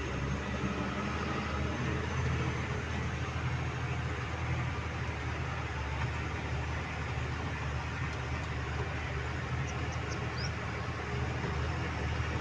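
Diesel engine of a Hyundai 210-7 excavator running steadily, a low even drone, with a few faint short high chirps near the end.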